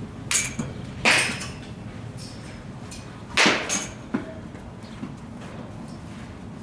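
Batting practice in a cage: sharp cracks of a baseball bat meeting the ball, the loudest about a second in and again about three and a half seconds in, with a few smaller knocks around them.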